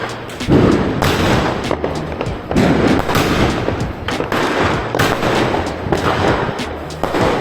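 Diwali firecrackers going off in rapid, overlapping volleys of sharp bangs, with a couple of heavier booms, over background music.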